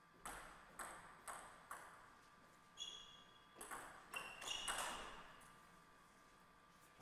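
Table tennis ball being played: four sharp clicks about half a second apart, then a quicker run of ringing pings and clicks of ball on paddles and table from about three to five seconds in.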